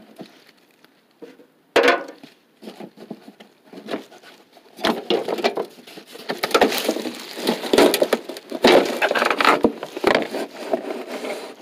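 A car's fender well cover being worked loose and dragged out of the wheel well. First a few scattered knocks and clicks, then from about five seconds in several seconds of loud scraping and rubbing with repeated knocks as the panel scrapes free.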